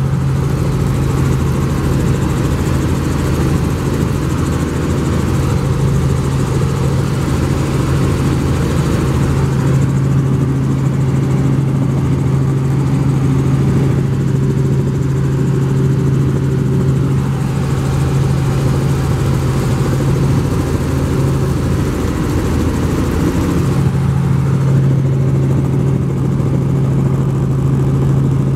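Helicopter in flight heard from inside the cabin: a steady engine and rotor drone with a strong low hum, which dips briefly about three quarters of the way through before returning.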